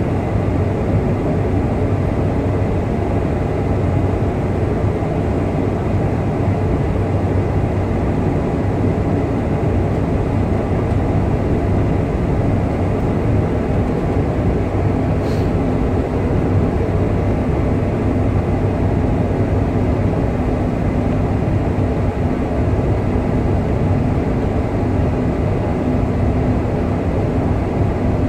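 Steady cabin noise inside a Boeing 747 in descent: the drone of its four turbofan engines and the rush of air past the fuselage, with a low hum. A faint steady low tone joins about halfway through.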